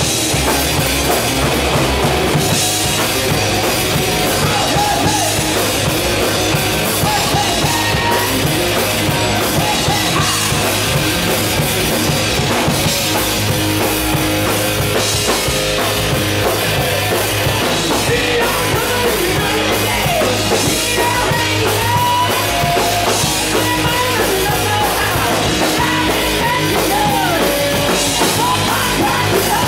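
A live hard rock band playing loud and without a break: electric guitars, electric bass and a drum kit. From about halfway through, bent guitar notes stand out above the band.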